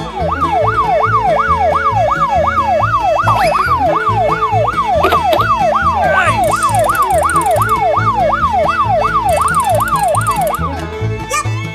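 Emergency-vehicle siren, its pitch sweeping rapidly up and down about two and a half times a second, over background music with a steady beat; it cuts off near the end.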